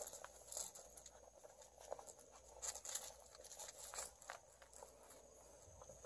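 Litter of Jindo puppies nursing from their mother: faint, irregular little clicks and smacks, a few a second, with no rhythm.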